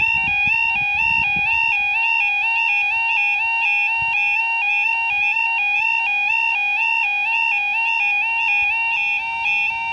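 UK level crossing's electronic two-tone yodel alarm sounding steadily, alternating between two pitches about two and a half times a second: the warning that the barriers are down for an approaching train. A few faint low thumps come in the first second or so.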